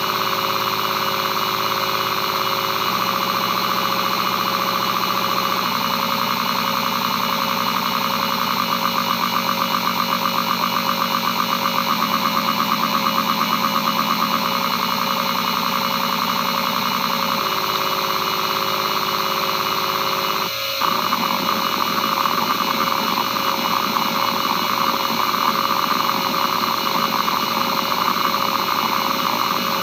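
Western Digital Caviar 22500 5200 RPM hard drive running a head-seek test. The heads buzz back and forth in regular patterns over the steady whine of the spindle, and the buzz steps to a new pitch every few seconds. About two-thirds through there is a brief click, and the seeking turns into rougher, irregular chatter.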